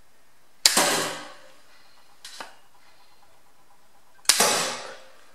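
Two shots from a 3D-printed pump-action mini-bow with TheraBand rubber limbs, about three and a half seconds apart. Each is a sharp crack of the release and the PLA arrow striking a polystyrene board, with a brief ring after. A faint click comes between them.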